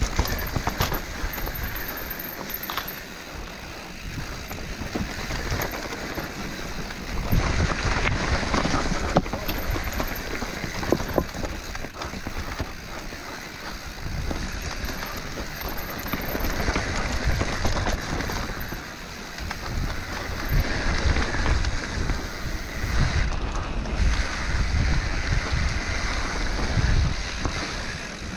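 Mountain bike ridden fast down a dirt trail: tyres rolling over the ground, with irregular knocks and rattles over bumps and wind buffeting the microphone.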